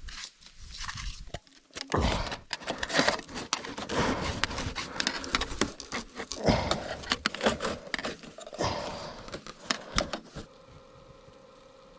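Gear being handled: irregular knocks, scrapes and rustling of fabric or bags. Near the end it gives way to a faint steady hum.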